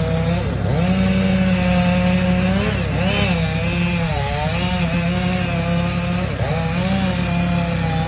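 Chainsaw running at high revs, its pitch dipping and recovering several times as it bogs down in the cut.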